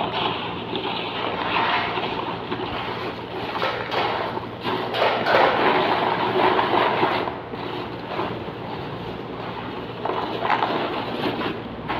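Crisp fried ragi nachos rustling and clattering as a hand tosses and stirs them in a plastic tub, loudest in surges when the tub is shaken.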